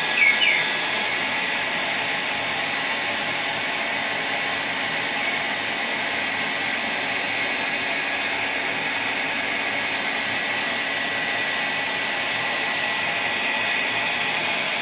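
Handheld hair dryer blowing steadily: a constant rush of air with a high, even motor whine. A few short high chirps come just after the start and once about five seconds in.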